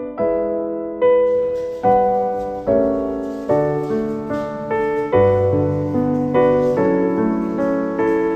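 Background music: a slow, gentle piano piece, soft chords struck one after another and left to fade.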